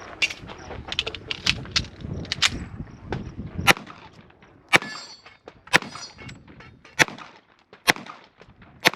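Handgun being fired at a defensive pistol match after a reload: a quick run of sharp clicks and knocks in the first few seconds, then six loud single pistol shots spaced about a second apart.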